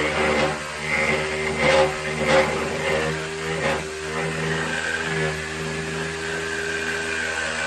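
A motor running steadily with a humming drone and a high whine, and a couple of short scrubbing sounds about two seconds in.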